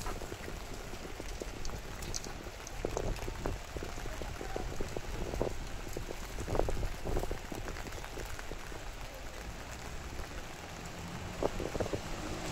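Steady rain falling, with irregular drops ticking and tapping close by.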